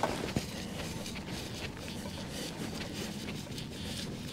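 Hands scraping and sifting through loose dry field soil, a steady rustle with small irregular clicks, while digging out a shallow metal-detector target.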